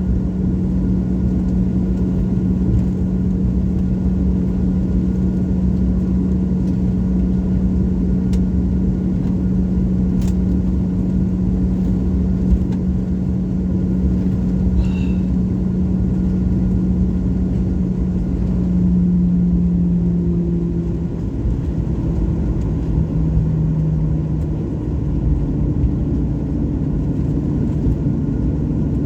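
Jet airliner's engines running: a steady rumble with a strong low hum, the hum stepping slightly lower in pitch twice after the middle.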